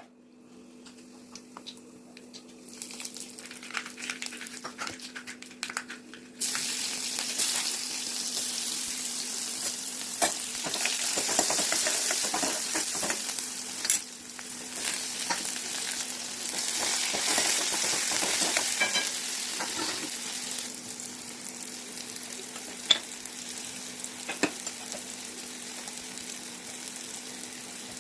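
Food frying in hot oil in a pan: after a few clicks, a loud sizzle starts suddenly about six seconds in, with knocks and scrapes of stirring; the sizzle eases off after about twenty seconds.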